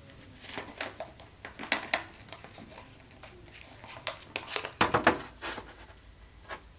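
A sheet of paper rustling and crinkling as it is wrapped and folded by hand, in irregular short rustles, the loudest about five seconds in.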